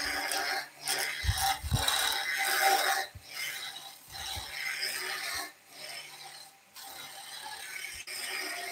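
Large skew chisel cutting a soft maple spindle spinning on a Robust wood lathe, with push-pull cuts. The shaving noise comes in repeated strokes with short breaks between them.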